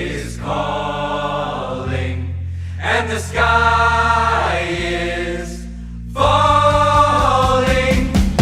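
Song music: sustained wordless choral-style vocals held over steady chords and bass, with percussion coming in about six seconds in.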